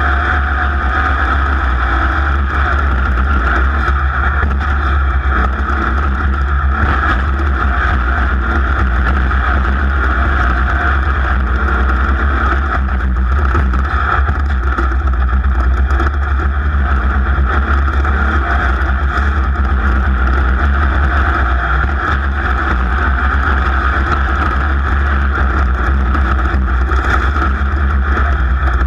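A racing engine running hard at a steady pace, heard from on board, with heavy wind rumble on the microphone.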